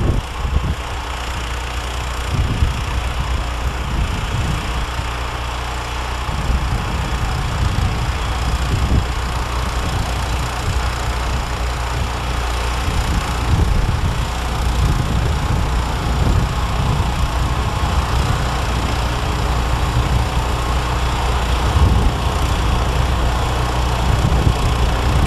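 John Deere 1032 two-stage snowblower, modified with a 16 hp engine, running steadily under load while throwing snow. The engine's low, even note grows a little louder as the machine comes closer.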